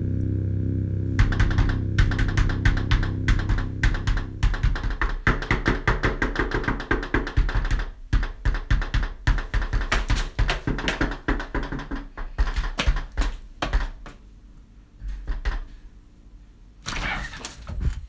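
A low music drone that stops about a second in, then a long rapid run of clicks and knocks, several a second, that thins out to a few scattered knocks near the end.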